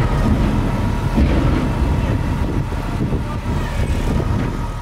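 Low, uneven engine rumble with a faint steady whine above it, fading out at the very end.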